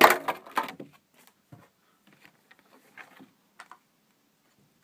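A cardboard box being opened and handled: a loud burst of scraping and rustling in the first second, then scattered faint clicks and taps.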